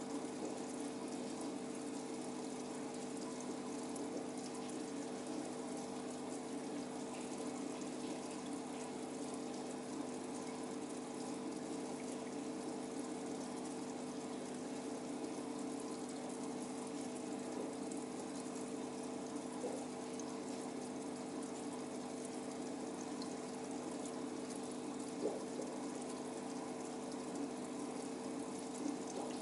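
Aquarium pump humming steadily, with water running and splashing in the tank. A single faint tap about three quarters of the way through.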